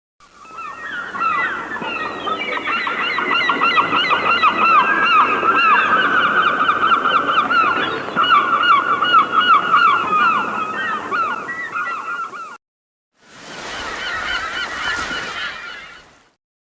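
A large flock of birds calling together, with many short, repeated, overlapping calls forming a loud continuous chorus. It cuts off suddenly about twelve and a half seconds in, then resumes briefly after a short silence.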